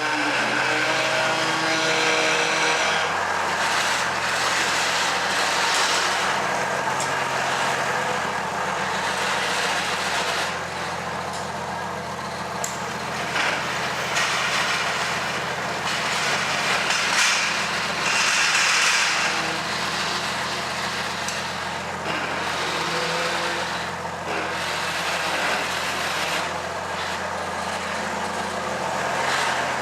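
An engine running steadily at idle, with some brief louder noise over it.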